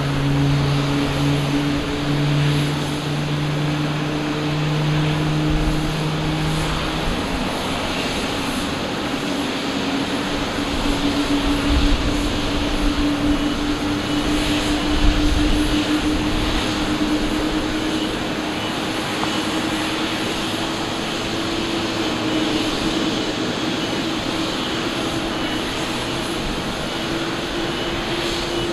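Jet airliner engines running on the apron: a steady rushing whine, with a hum that slowly rises in pitch throughout. A lower hum stops about a quarter of the way in, and there are a couple of low bumps near the middle.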